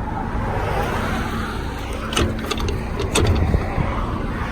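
Diesel tractor-trailer engine idling steadily, with a few sharp clicks about two seconds in and a louder knock a second later.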